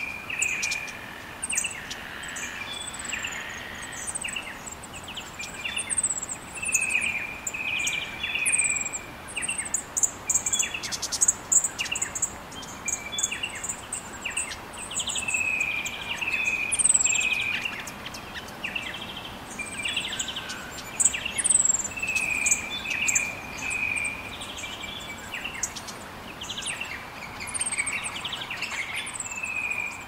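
Several species of Australian birds calling together: short repeated notes in quick runs of three or four, and sharp high chirps that fall in pitch, over a steady background hiss.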